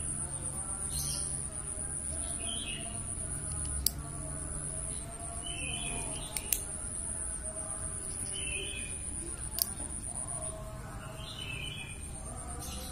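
Three sharp clicks a few seconds apart as a mini folding karambit knife's blade is flicked open and shut by hand. Behind them, birds chirp briefly every couple of seconds over a steady high-pitched insect hum.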